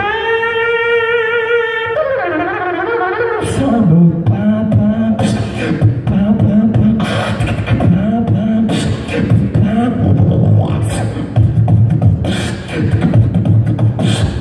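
Solo human beatboxing into a handheld microphone. It opens with a held sung note that slides down, then about three and a half seconds in a beat starts: a low hummed bass line with sharp snare-like clicks over it.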